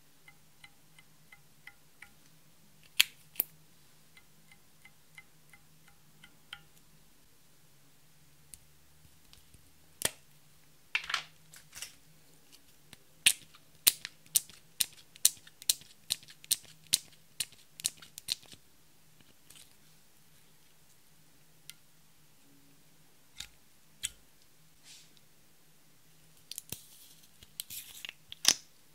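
Sharp plastic clicks of makeup packaging being handled: a regular run of about two clicks a second for several seconds as a bottle of liquid makeup is pumped onto a spatula, then a quick cluster of clicks near the end as a lipstick tube is worked.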